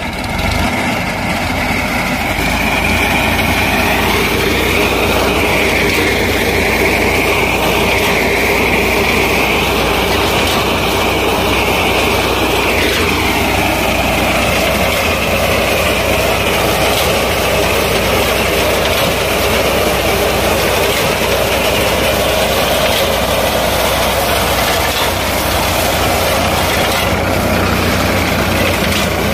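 A Powertrac Euro tractor's diesel engine runs steadily while a reaper binder cuts and ties wheat. A high whine over the engine drops sharply in pitch about twelve seconds in.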